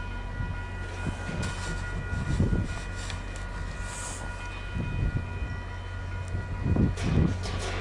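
VIA Rail F40 diesel locomotive 6455 approaching at the head of a passenger train: a steady low engine rumble with several steady high-pitched tones over it, swelling a little louder near the end.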